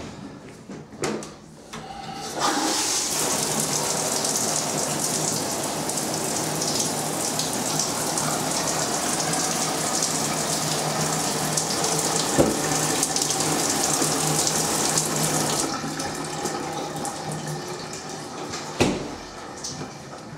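Showerhead spraying water onto a tiled shower wall, a steady rush that starts about two seconds in and stops around sixteen seconds in. A few clicks and knocks come near the start and end, with a sharp knock about twelve seconds in.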